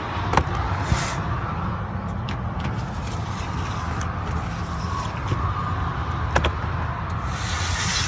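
Steady low mechanical rumble from rooftop HVAC equipment running, with a few sharp clicks and knocks from handling the unit's sheet-metal access panel and pleated filters.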